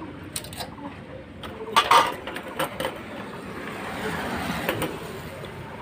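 Light metal clicks and handling noise of a new piston ring being worked out of an engine's cylinder liner, with a louder short clatter about two seconds in and a soft hiss rising after it.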